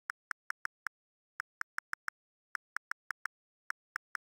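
Phone on-screen keyboard key-press clicks: a quick run of identical short ticks in groups of four or five with brief pauses between groups, about eighteen in all.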